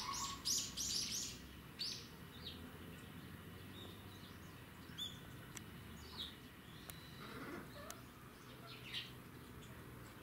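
Short high bird chirps: a quick run of about five in the first second and a half, then scattered single chirps every second or two, over a faint steady background.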